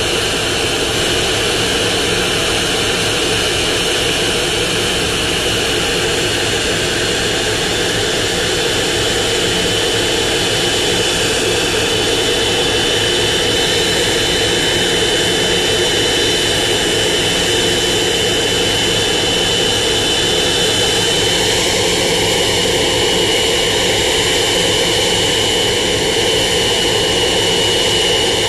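Boeing 777-200ER's two turbofan engines running steadily during a ground engine run-up: a loud, even jet roar with a high whine held on one pitch.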